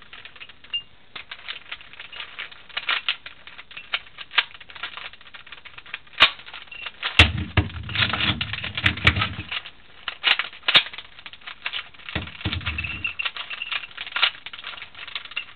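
Rapid, irregular clicking and clacking of a 3x5x7 cuboid twisty puzzle, a modded Rubik's cube, being turned through an algorithm. Two low rumbling stretches come in, about seven and about twelve seconds in.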